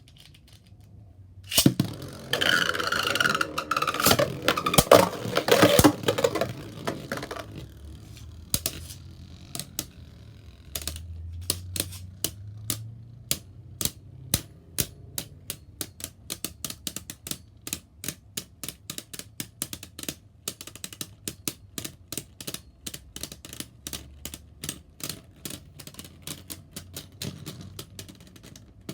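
Beyblade Burst spinning tops launched into a plastic stadium: a sharp hit, then a few seconds of loud whirring and clashing, followed by a long run of separate sharp clicks, a few each second.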